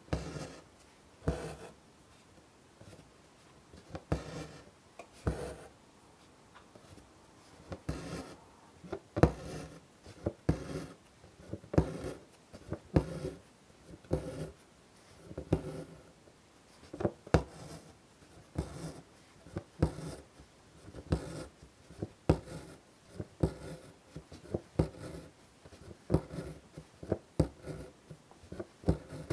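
Embroidery needle piercing taut fabric and white thread being drawn through it, a string of short taps and scratchy pulls coming every second or so at an uneven pace.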